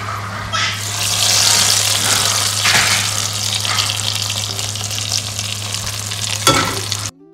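Tadka of hot oil, fried onions, cumin and whole red chillies hitting a pot of yogurt and gram-flour kadhi and sizzling loudly, strongest in the first two seconds, over a steady low hum. The sizzle cuts off suddenly near the end.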